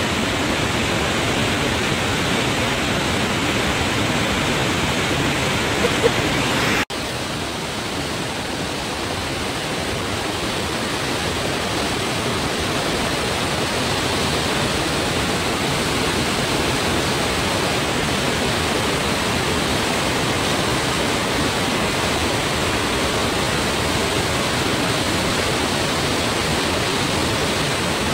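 Steady rush of a mountain stream running fast over rocks in small rapids, with a brief break in the sound about seven seconds in.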